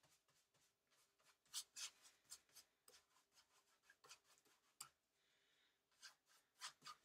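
Faint, scratchy strokes of a wide nylon paintbrush spreading white acrylic paint over collaged paper on canvas, coming and going unevenly.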